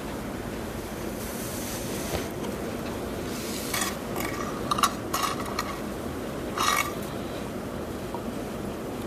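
Hands working plantain pieces in batter in a glass baking dish: a few short clinks and knocks against the glass in the middle, over a steady background hiss.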